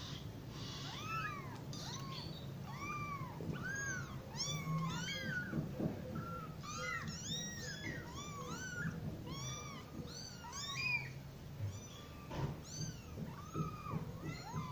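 A litter of young kittens mewing over and over, many short high mews overlapping, each rising and then falling in pitch.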